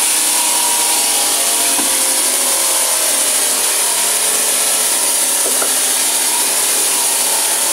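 Marble polishing machine running, its abrasive disc head grinding across a marble slab with a steady, loud grinding hiss and a faint machine whine.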